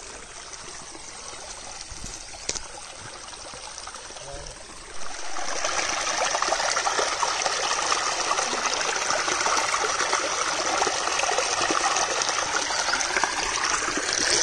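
Shallow stream trickling and rushing over rocks. It is soft for the first five seconds, then turns suddenly much louder and closer, and stays steady from there.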